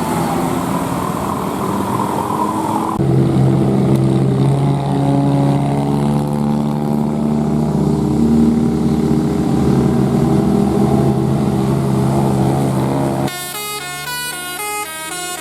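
A bus running loudly as it passes, with a steady engine drone. About 13 seconds in, a telolet musical air horn starts playing a tune of quick stepping notes.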